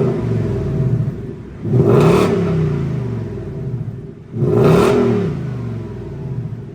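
2018 Ford Mustang GT's 5.0-litre Coyote V8 revving through its stock exhaust: the end of one rev falling away, then two quick blips about two and a half seconds apart, each rising sharply and sinking back toward idle.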